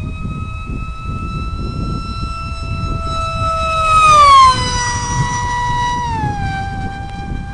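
Electric RC plane's motor and propeller whining at high throttle over a low wind rumble. The whine is loudest about four seconds in, then drops in pitch in two steps as the throttle is eased back.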